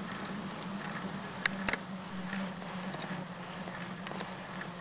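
Riding noise of a bicycle rolling along a paved trail: steady tyre-and-wind noise with a low hum. Two sharp clicks or rattles come close together about a second and a half in.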